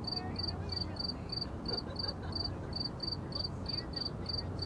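A cricket chirping steadily, about three short high chirps a second, over the low hum of distant city traffic.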